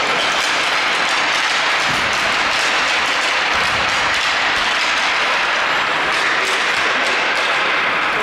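Steady applause, an even clatter of many hands that holds at one level throughout.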